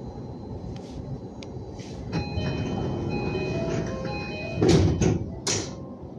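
Electric Yamanote Line commuter train running, heard from inside the car: a steady low rumble of wheels on rail, with a group of whining tones that step in pitch partway through. Two loud knocks come near the end.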